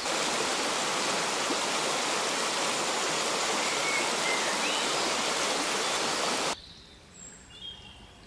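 Shallow, rocky stream rushing over stones, a steady noisy wash of water. It cuts off suddenly about six and a half seconds in, leaving a much quieter background with a few short, high bird chirps.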